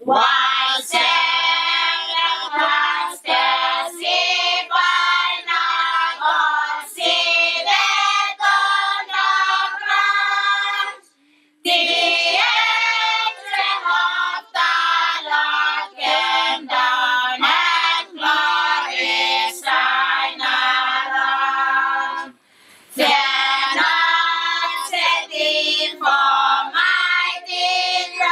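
A group of young voices singing a Christmas carol together, with two short breaks between phrases, about eleven and twenty-two seconds in.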